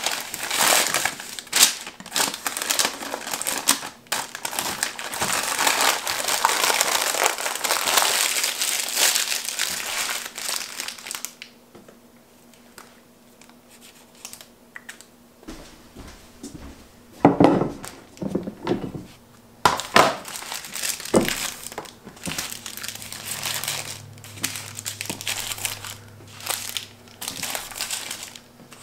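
Parchment paper crinkling and rustling as breakfast burritos are wrapped, heavy for the first ten seconds or so, then quieter, with a few sharp knocks about two-thirds of the way through.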